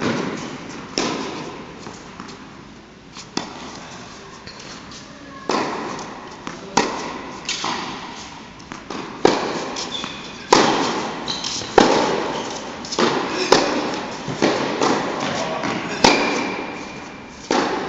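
Tennis balls struck by rackets and bouncing on an indoor hard court: a run of sharp pops every second or two, each ringing on in the hall's echo.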